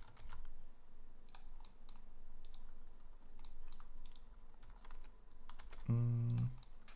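Computer keyboard keys pressed at an irregular pace for editing shortcuts, single sharp clicks scattered throughout. About six seconds in, a brief low hum, the loudest sound.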